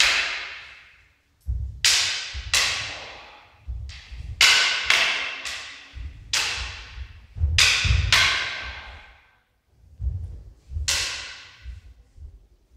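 Wooden bokken and longsword clashing in free sparring: about a dozen sharp blade-on-blade strikes, some in quick pairs, each ringing out for up to a second, with low thuds between them. The strikes come in bursts with a short lull about three-quarters of the way through.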